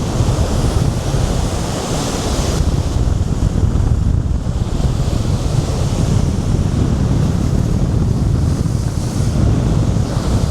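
Rough sea waves breaking and surging at high tide, with strong wind buffeting the microphone as a heavy low rumble. The surf hiss swells and eases over a few seconds.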